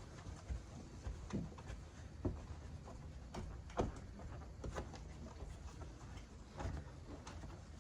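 Faint handling noises at close range: irregular light knocks, clicks and rubbing, with a few sharper taps standing out.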